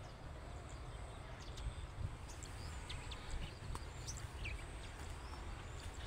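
Faint open-field ambience: a steady low rumble with a few short, high bird chirps scattered through it.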